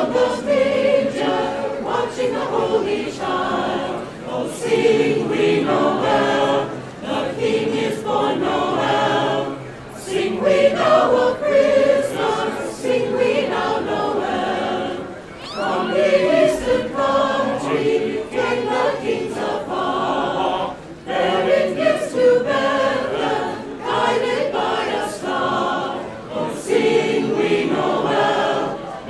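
Mixed choir of men's and women's voices singing a Christmas carol, unaccompanied, in phrases with short breaks for breath between them.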